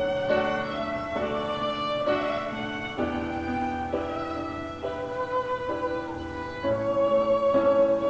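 Background instrumental music: slow, sustained notes in a string-like melody, changing about once a second.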